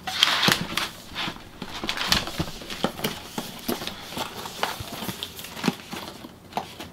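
Cardboard shoebox being handled and opened by hand: irregular taps, knocks and brief scraping rustles as the lid and sleeve are worked off.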